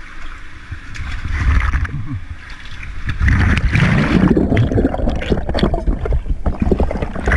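Water splashing and gurgling around a camera held in a canyon pool. From about three seconds in, the camera is submerged and the sound turns to loud, muffled churning and bubbling of water with knocks, as a swimmer moves through the pool.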